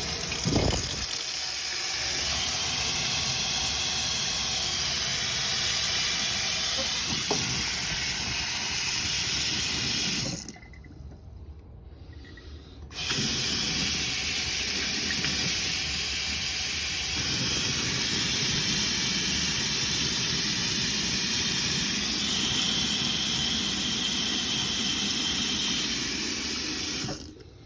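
Water running hard from a Delta kitchen faucet into the sink, shut off about ten seconds in and turned back on a couple of seconds later, then shut off near the end. The faucet is being tested after new seats and springs were fitted to cure a drip.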